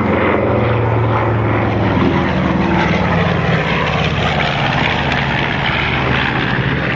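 Twin-engine piston propeller warplane flying past overhead, its engines giving a loud, steady drone that slides somewhat lower in pitch as it goes by.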